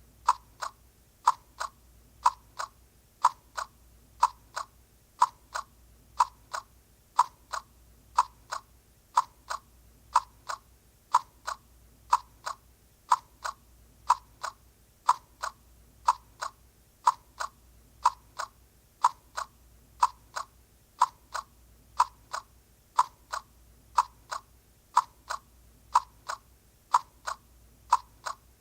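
Heartbeat sound effect: a steady lub-dub of paired beats, about one heartbeat a second, the first beat of each pair louder than the second.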